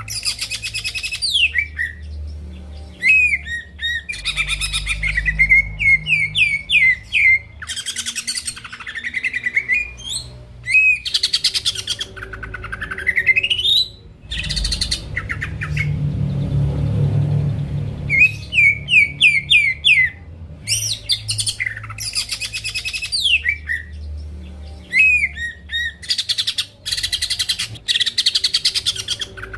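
Green leafbird (cucak ijo) in full song, a varied run of loud phrases: rising whistled sweeps, dense rapid trills, and quick series of short chirping notes, with brief pauses between.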